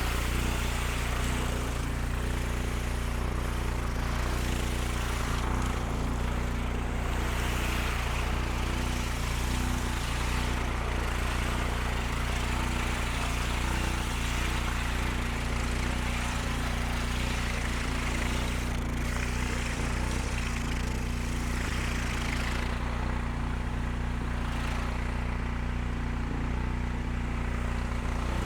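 Magnum 4000 Gold hot water pressure washer running steadily, its motor droning with water hissing out under pressure. A lot of the water is escaping at a hose fitting that will not seal, which the owner takes for a missing gasket or O-ring.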